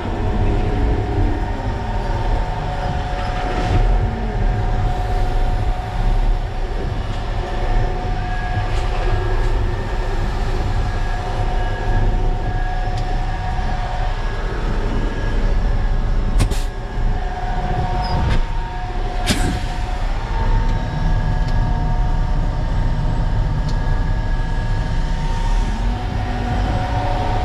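Concrete mixer truck's diesel engine running steadily, a heavy low rumble with a constant whine over it, as the truck is manoeuvred into position to unload. Two sharp clicks come a little past the middle.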